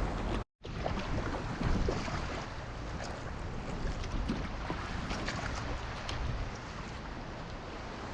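Sea water sloshing and splashing around a kayak, with many small sharp splashes and wind on the microphone; the sound drops out for a moment about half a second in.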